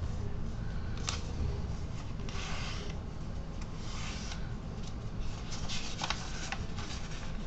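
A sheet of paper being handled and folded, rubbing and rustling in short bursts as creases are pressed in, with a few sharp crisp crackles, most of them near the end.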